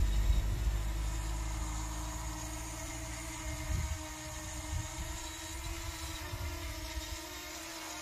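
DJI Mini 2 drone's propellers humming steadily as it comes in to land, a buzz like a big bumblebee. A low rumble fades out over the first few seconds.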